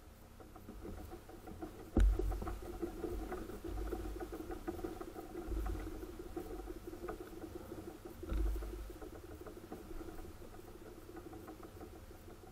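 Muffled taps, small clicks and rustling from gear being handled aboard a fishing kayak, with a sharp knock about two seconds in and a duller thump at about eight seconds.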